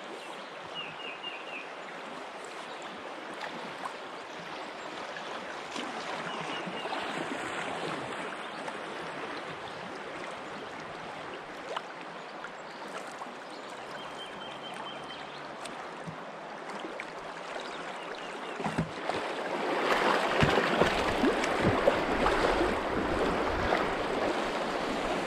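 River water rushing and splashing around a small boat drifting downstream through a riffle. The water gets louder about twenty seconds in as the boat runs into choppier water. A bird chirps a few times near the start.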